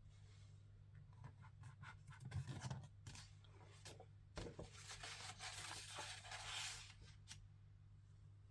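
Faint rustling and scattered light clicks of handling, loudest around the middle, over a steady low electrical hum.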